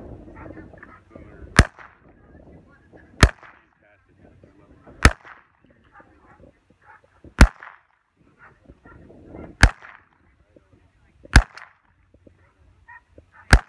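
Pistol fired one shot at a time: seven sharp cracks about two seconds apart, each with a brief echo.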